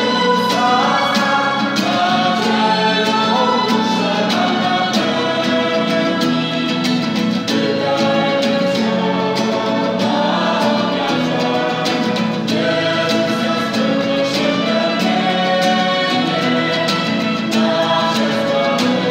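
Choir singing a Christian song to instrumental accompaniment, the melody moving steadily without a break.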